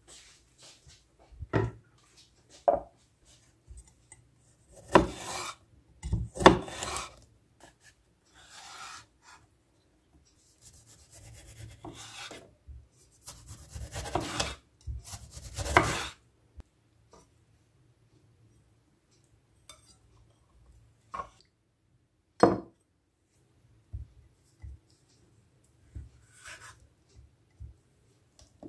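Kitchen knife cutting a tomato and then cheese on a wooden cutting board: scraping slices with scattered knocks of the blade and board, and a longer run of scraping cuts in the middle.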